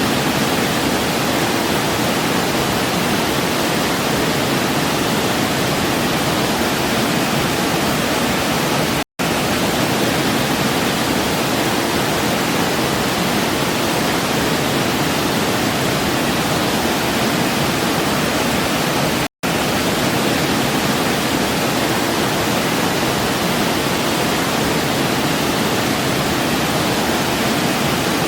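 Waterfall cascade rushing in a steady, unbroken hiss of falling water. The sound cuts out for an instant twice, about nine and nineteen seconds in, where the recording loops.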